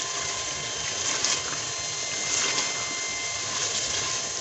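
Chicken masala sizzling steadily in a metal pot while a spatula stirs it, with a few faint scrapes of the spatula against the pot.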